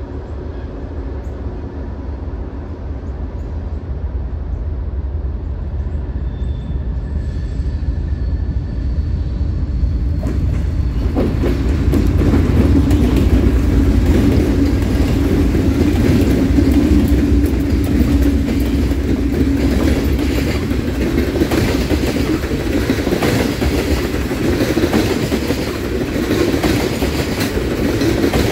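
A freight train's three diesel locomotives approach, their engines growing steadily louder, and pass close by about eleven seconds in. The train's loaded tank cars then roll by with their wheels clicking over the rail joints.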